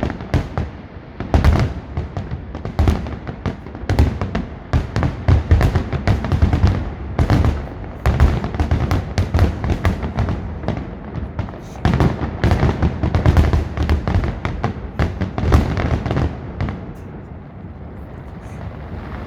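Fireworks display: a rapid barrage of aerial shell bursts, booms and crackles, one after another, thinning out about three-quarters of the way through.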